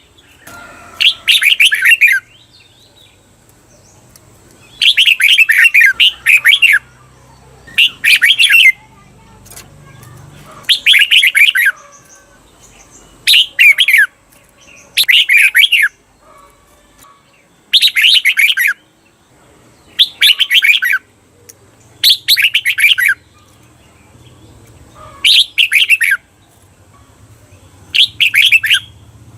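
Red-whiskered bulbul singing its 'double' song: loud, quick warbled phrases of under a second, repeated about every two seconds, some given twice back to back.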